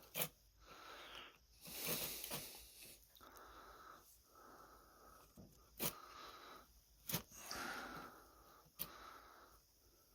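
Brush scrubbing the type slugs of a Remington Portable typewriter in repeated strokes about a second apart, clearing out ink gunk loosened with a pick. A few sharp clicks are scattered among the strokes.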